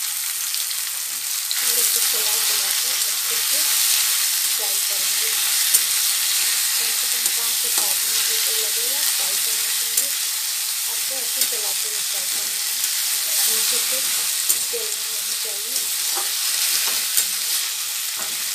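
Mustard and bathua greens sizzling in hot mustard-oil tadka in a metal kadhai, stirred and scraped with a spatula from about a second and a half in, with a few sharp taps of the spatula against the pan.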